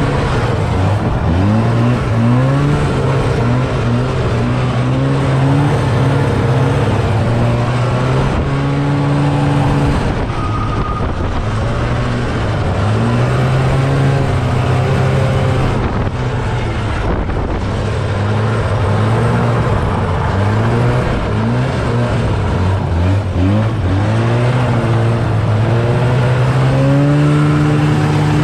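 STELS Viking 600 snowmobile engine running under way, its pitch rising and falling over and over as the throttle is opened and eased.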